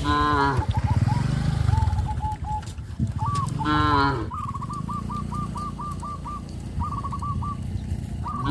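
Cattle mooing: three calls, at the start, a little after the middle and at the very end. Under the calls runs a fast chatter of short, repeated, higher calls from another animal.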